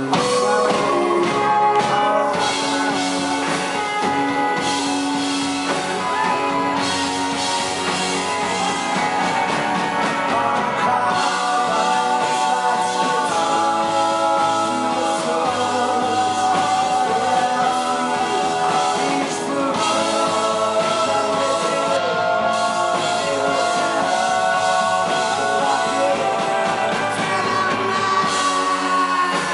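Live rock band playing: electric guitars, bass guitar and drum kit under a male lead vocal, recorded from the audience on a compact camera's microphone.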